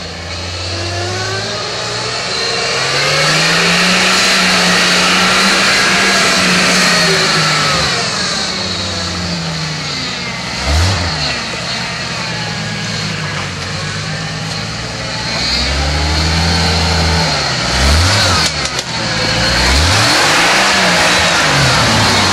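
Off-road 4x4 truck engine revving up and down again and again as it works through a muddy rut, with a brief clatter late on.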